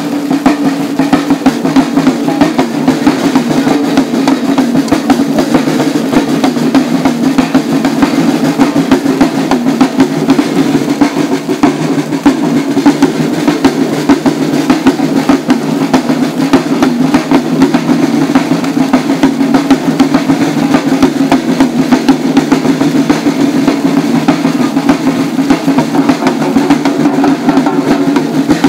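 Samba drum group playing a dense, unbroken rhythm on drums carried at the hip.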